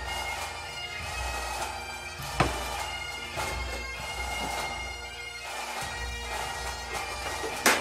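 Bagpipe music with steady held drones. Two sharp cracks cut through it, one a couple of seconds in and a louder one near the end.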